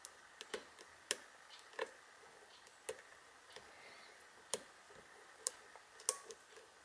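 A dozen or so small, sharp metallic clicks at uneven intervals: a hook pick tapping and lifting the pins of a Buffo cylinder lock under a tension wrench during single-pin picking, with the core held in a deep false set.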